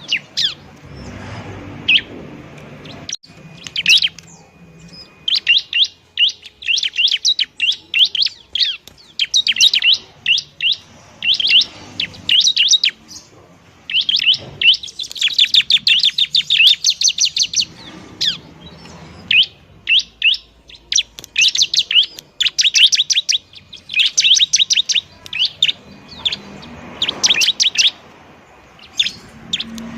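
Bar-winged prinia (ciblek) calling noisily: volleys of rapid, sharp, high chirps in bursts of one to three seconds, with short pauses between them.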